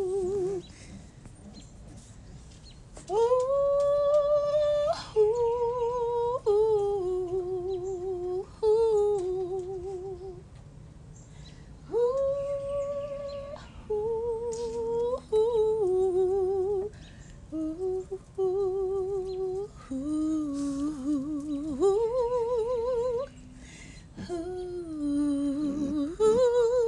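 A woman humming a slow, wordless, improvised melody in long wavering held notes. The notes step up and down in phrases broken by pauses of a second or two.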